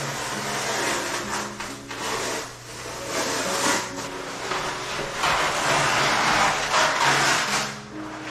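Wallpaper being peeled and torn off a wall in long sheets, a rasping, ripping paper noise, loudest about three seconds in and again over the second half. Background music plays underneath.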